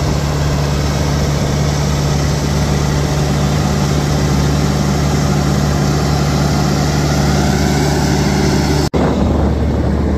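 Case compact crawler dozer's diesel engine running steadily at constant speed, a deep even drone heard close by, with a brief break near the end.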